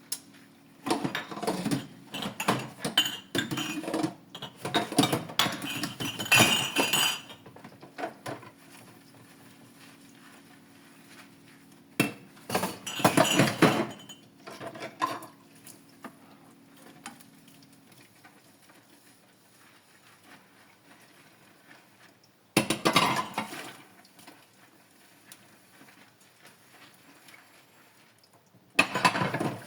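Dishes, glassware and cutlery clinking and clattering as they are handled while washing up, in four bursts with quiet gaps between: a long run of clatter at the start, another about halfway, and short ones later and at the very end.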